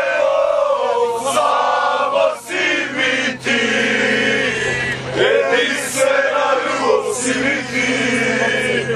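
A group of male football supporters chanting in unison inside a coach, holding long sung notes. Sharp knocks or claps cut in now and then, over a steady low hum.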